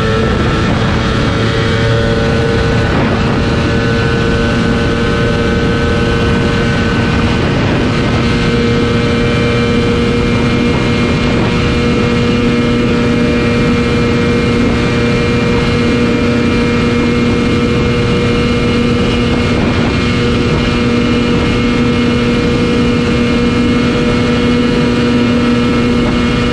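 Ducati Panigale V4 S's V4 engine at full throttle at high speed. Its pitch creeps up slowly over the first several seconds, then holds steady at high revs under a dense rush of wind noise.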